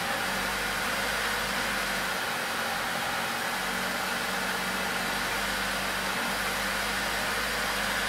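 2004 Honda Civic's 1.7-litre four-cylinder engine idling with a steady hiss. It idles poorly with very negative fuel trims, which the mechanic puts down to an EGR valve stuck open.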